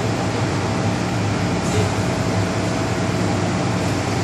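Steady interior noise of an MTR M-Train carriage: an even rushing sound over a low hum.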